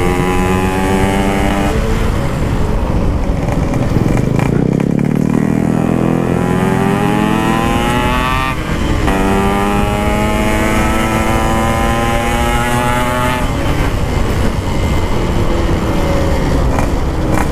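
Yamaha RX-King 135cc single-cylinder two-stroke with an aftermarket exhaust, accelerating hard. Its pitch climbs in long rising sweeps, dropping about two seconds in, past the middle and near the end as the rider shifts up or rolls off the throttle.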